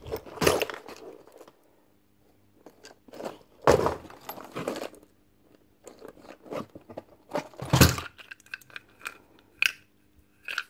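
Loose screws, bolts and washers rattling and clinking in the tubes of a parts-sorting crate as hands rummage through them and shift the crates, in three main bursts with small clicks in between.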